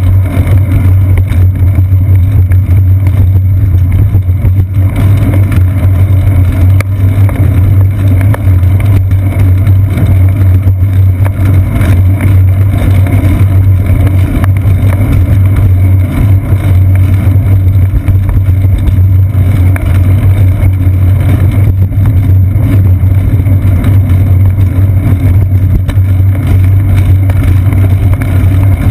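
Loud, steady low rumble of a moving bicycle picked up by a GoPro Hero 2 clamped to the seat post: wind and road vibration on the camera as it rolls along a concrete sidewalk, with no breaks or separate events.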